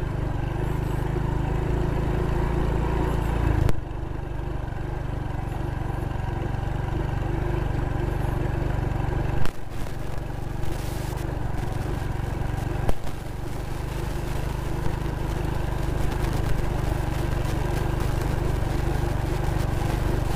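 Small motorcycle engine running steadily while riding, with low wind rumble on the microphone and a few brief knocks about 4, 9 and 13 seconds in.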